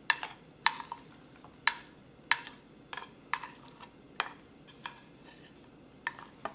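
A wooden spoon knocking and scraping against a ceramic plate, about ten sharp clicks at an uneven pace, as chopped vegetables are pushed off the plate into a dish of liquid.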